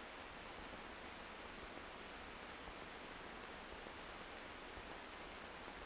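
Faint, steady hiss of an old film soundtrack, with no other sound in it.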